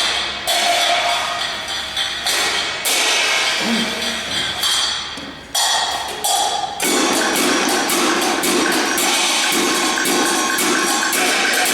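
Live band music with sharp struck percussion. Separate strikes ring out at first, and about seven seconds in the playing fills out into a denser, continuous sound.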